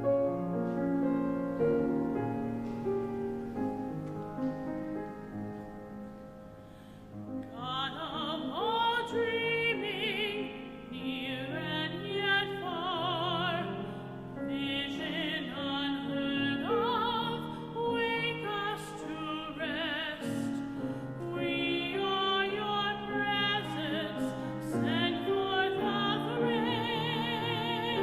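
Sacred music: a keyboard plays held chords for about seven seconds, then a solo singer with a strong, classically trained vibrato comes in and sings over the accompaniment.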